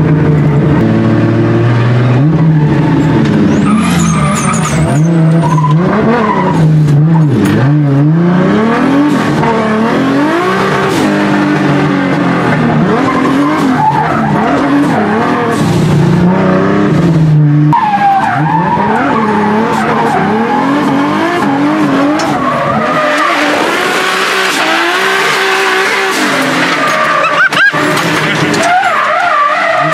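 Drift car being driven hard, heard from inside the cabin: the engine revs up and drops back again and again as it is worked through the slides, with tyres squealing and skidding. From about two-thirds of the way through, a loud rushing tyre-skid noise takes over while the engine sounds lower in the mix.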